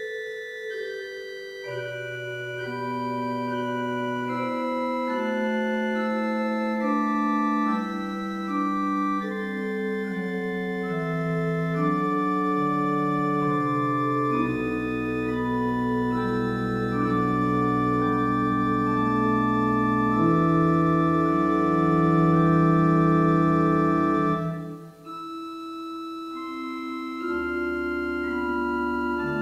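Church organ playing a slow prelude of long held chords. Deep pedal bass notes come in about halfway, and there is a brief break between phrases near the end.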